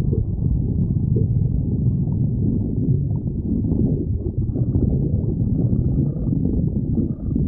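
A person's stomach growling without a break, the sound sitting low in pitch.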